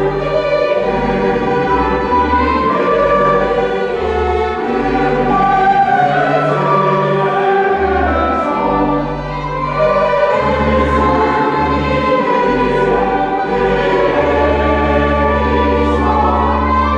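Church choir singing a mass setting built on Christmas carols, accompanied by organ whose low bass notes change every second or so and hold one long note from about fourteen seconds in.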